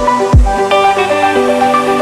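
Electronic background music: a deep kick drum with a falling pitch lands about twice a second, then drops out about half a second in while the synth notes carry on.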